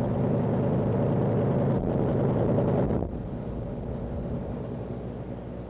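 Pickup truck engine running with a steady low rumble, which drops sharply to a quieter rumble about three seconds in.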